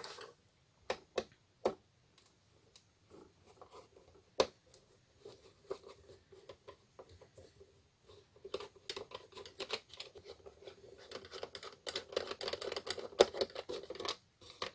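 A screwdriver working the screws in the bottom plate of an Intel NUC mini PC's metal-and-plastic case. A few separate clicks and taps come first, then about halfway through a dense run of scratchy clicking and rubbing that lasts several seconds.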